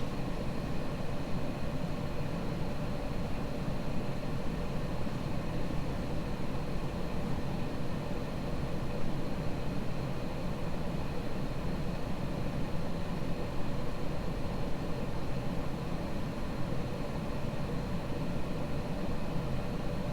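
Casablanca Delta II ceiling fan running steadily: an even low motor hum and air noise with several faint steady high tones. The owner says its bearings have dried out and are a little noisier than they should be.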